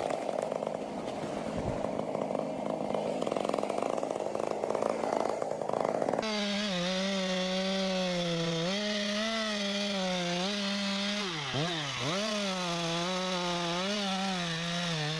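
Chainsaw cutting into wood with a rough, rasping sound under load. About six seconds in it changes abruptly to a chainsaw engine at high revs with a clear, wavering pitch, which dips sharply twice in the last third as the load or throttle changes.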